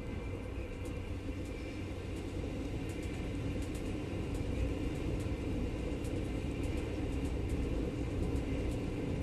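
Long-distance passenger train running, heard from inside the carriage: a steady low rumble of the wheels on the rails, with faint scattered ticks.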